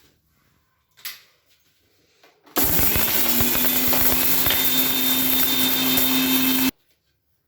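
Electric mixer grinder grinding whole cloves, black pepper and cinnamon with dry ginger powder. The motor whine rises quickly as it spins up, holds steady for about four seconds, then cuts off suddenly.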